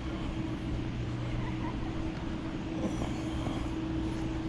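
A motor or engine running steadily: a constant low hum with one held tone above it that does not change.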